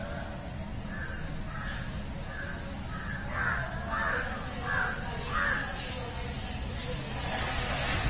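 Crows cawing: a run of about nine short, harsh caws a little over half a second apart, loudest in the middle stretch.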